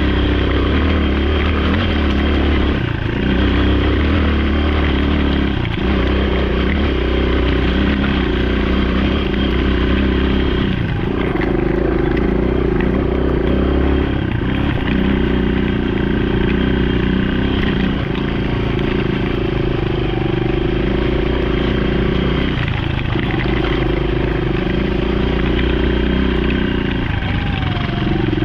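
Single-cylinder dual-sport motorcycle engine running steadily under way, its pitch shifting up and down every few seconds.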